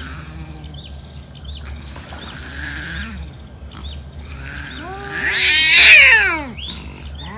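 Cat yowling: one loud, drawn-out cry about five seconds in that falls in pitch as it ends.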